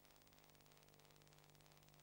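Near silence: faint steady electrical hum and hiss of the transfer, with no sound recorded on the film.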